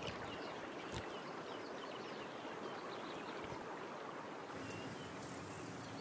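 Soft, steady lapping and rippling of river water around a swimming crocodile, with one faint knock about a second in. About four and a half seconds in it changes to open outdoor ambience with a few short, high chirps.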